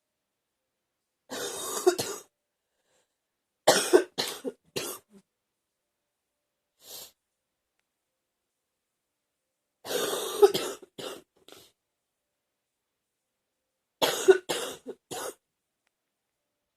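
A woman's chesty, wet cough, coming in four fits a few seconds apart, most of them two to four coughs in quick succession.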